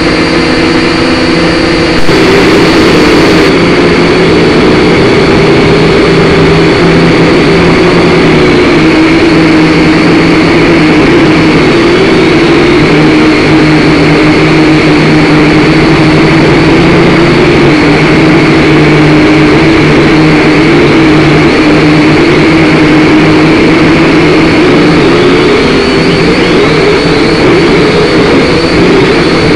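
Small quadcopter drone's electric motors and propellers whining, heard close up from the drone's own camera. The whine jumps louder and higher about two seconds in, then wavers up and down in pitch as the drone manoeuvres.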